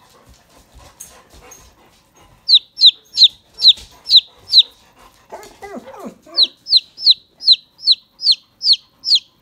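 A chicken chick peeping: loud, high, downward-sliding peeps, about three a second, starting a couple of seconds in. About halfway through, the peeps break off briefly for a lower-pitched call, then carry on.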